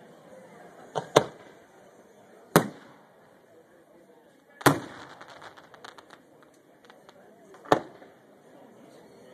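Aerial firework shells bursting in a series of sharp bangs: a double bang about a second in, then single bangs every two to three seconds. One burst is followed by a spatter of crackles.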